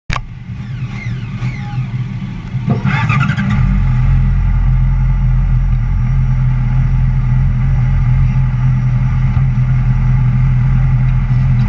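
Yamaha sportbike engine idling while the bike stands still, with a quick throttle blip about three seconds in. After the blip it runs louder and steadier.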